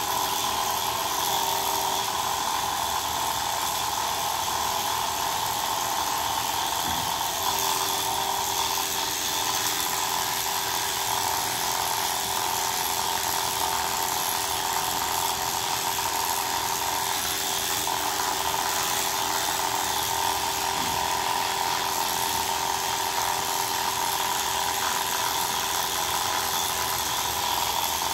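Corded electric pet clippers running with a steady buzz as they shave a Persian cat's long coat.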